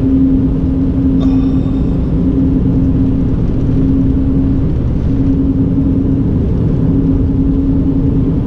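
Car driving at steady road speed, heard from inside the cabin: a continuous low rumble of tyres and engine with a steady hum.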